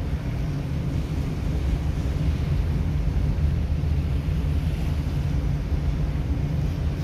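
Steady low rumble of a ship's machinery heard on the open deck, with wind on the microphone.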